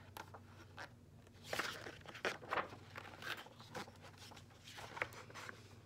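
Paper pages of a picture book being turned by hand: a series of soft, short rustles.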